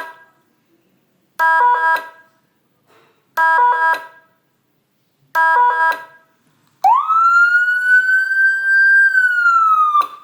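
Electronic Whelen-tone siren module sounding through its speaker. It gives three short stepped-tone blips about two seconds apart, then a wail that rises quickly, holds high and slides back down, cutting off near the end.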